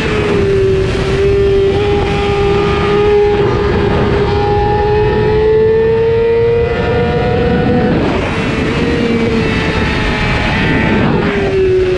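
600cc race motorcycle engine held at high revs under hard acceleration, heard onboard. Its pitch climbs slowly through a long pull and steps down about a second before the end, as at an upshift.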